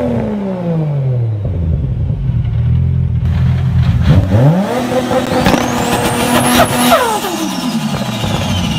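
A revving car-engine sound that drops in pitch at the start, rises again about four seconds in, holds a steady note for a couple of seconds and then falls away, as if a car speeds up and slows down.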